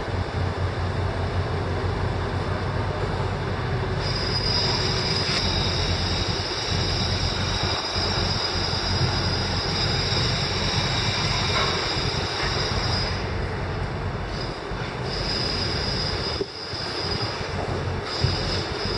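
Mobile crane working: a steady mechanical drone with a low hum at first, then a steady high-pitched squeal that holds from about four seconds in until about thirteen seconds and returns in shorter stretches near the end.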